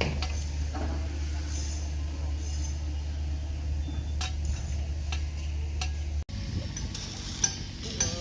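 A steady low machine hum with scattered light clinks and taps; about six seconds in it cuts off abruptly to a different, noisier sound with bursts of hiss and a sharp click.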